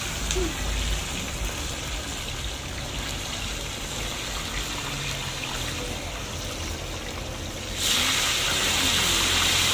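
Fish deep-frying in a large wok of hot oil, a steady sizzle that suddenly grows louder and brighter near the end.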